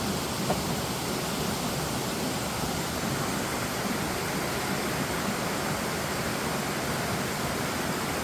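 Rushing water of a rocky mountain stream, a steady, unbroken noise.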